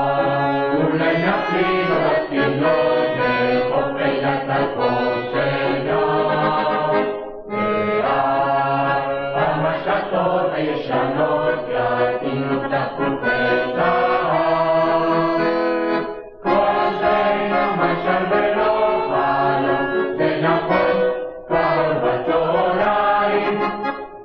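Youth choir singing a Hebrew song from a vinyl record, in long phrases with short breaks between them.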